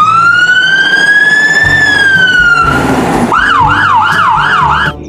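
Electronic siren: one long wail that rises and then falls, then after a short gap a fast yelping warble of about three cycles a second that cuts off shortly before the end.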